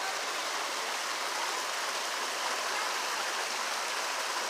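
Shallow stream water running steadily over rocks in a stone-lined channel.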